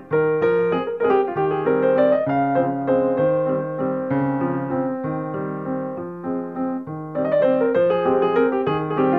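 Background music: a piano or keyboard piece playing notes and chords in a steady rhythm.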